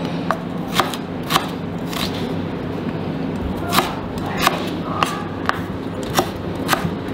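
Chef's knife slicing ginger on a wooden cutting board: about eleven sharp knocks of the blade on the board at an irregular pace, with a pause of over a second near the middle.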